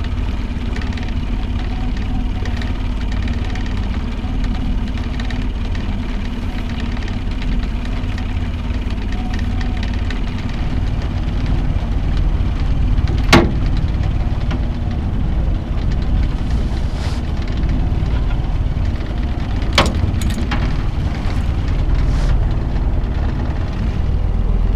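Boat's outboard motor running steadily at low trolling speed, with two brief sharp clicks, one about halfway through and one about three quarters of the way in.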